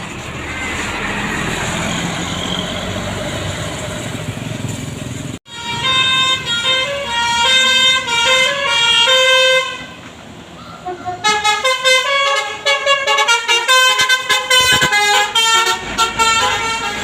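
Bus going by with a steady engine and road rumble. After a sudden break about five seconds in, a telolet basuri musical bus horn plays a tune of stepped notes, then a faster run of notes from about eleven seconds in.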